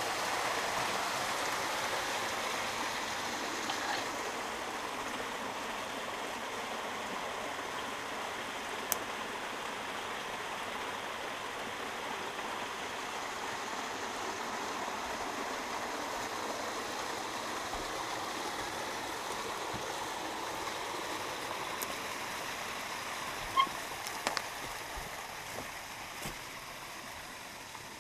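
Small creek cascading over a log: a steady rush of running water that slowly fades. A few sharp clicks come near the end.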